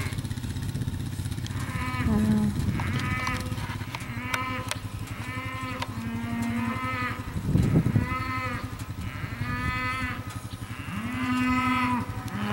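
Cattle mooing over and over, a string of short calls that rise and fall, one every second or so, over the low steady running of an idling ATV engine.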